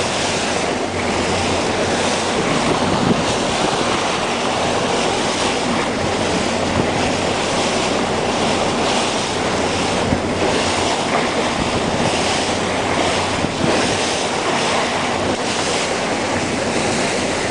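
Boat under way: a steady rush of wind on the microphone and water along the hull, over a low, even engine hum.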